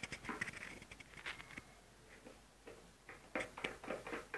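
Screwdriver working the screws on an analogue multimeter's plastic back case, with scattered faint clicks and scrapes of the tool and the case being handled, and a few sharper clicks about three and a half seconds in.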